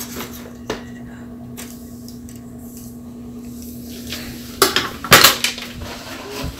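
Hard objects clattering and knocking on a wooden table, a few light clicks and then a burst of loud knocks about four and a half to five and a half seconds in, over a steady low hum.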